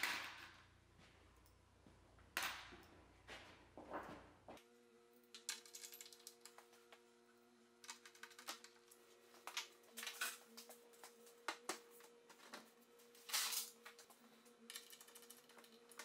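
Light, irregular clicks, taps and short scrapes of hand tools and small hardware against laminated chipboard and plywood panels as a cupboard carcass is put together by hand, with a few sharper clicks among them.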